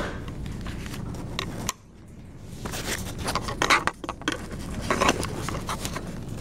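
Rustling, clicking and scraping handling noises over a steady low room hum; the hum drops away suddenly about two seconds in and builds back, and the clattering is loudest around the middle.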